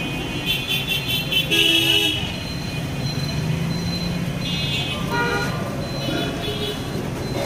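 Roadside traffic: a steady engine hum, with vehicle horns tooting in a quick run of short toots in the first two seconds and again around five seconds in.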